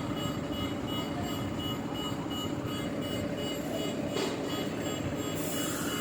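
Heavy diesel engine running steadily, with a short knock about four seconds in and a high hiss starting near the end.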